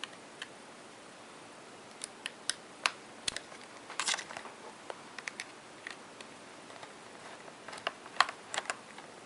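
A tiny number-zero screwdriver loosening the small captive screws on the metal strip that covers a white MacBook's RAM: scattered light clicks and ticks, some in quick little groups.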